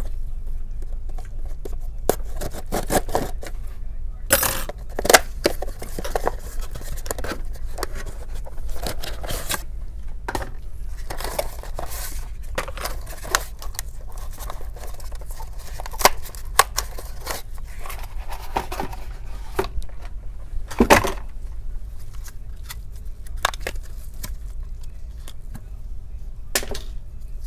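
A small cardboard CPU retail box being cut open and unpacked by hand: its seal slit with a metal pick, the flaps opened and the contents pulled out, giving an irregular run of scrapes, clicks and rustles, with a sharper knock about 21 seconds in. A steady low hum runs underneath.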